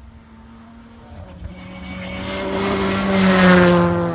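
Modern rally car engine at steady high revs approaching along the stage, growing louder to a peak and falling slightly in pitch as it passes, then cutting off suddenly.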